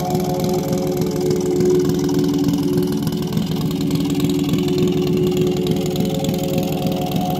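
Custom hubless-wheel motorcycle's engine idling steadily with a fast, even pulse.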